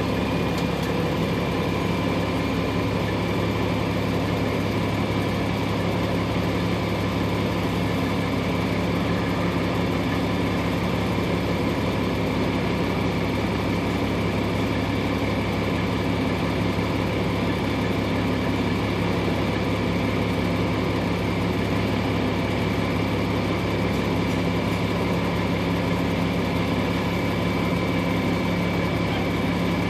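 Engine of a parked vehicle idling steadily: a constant low hum with a faint high whine above it and no change in speed.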